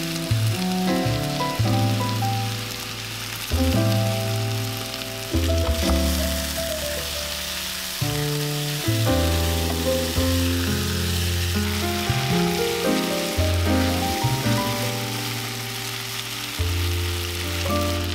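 Diced potatoes, carrots, peppers and onion sizzling steadily as they fry in oil in a pot. Light background music with held, changing notes plays alongside.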